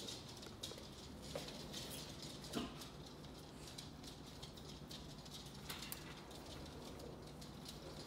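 Faint scratching and scattered light clicks from a squirrel monkey moving on its wire cage and pulling at a stuffed toy held to the bars.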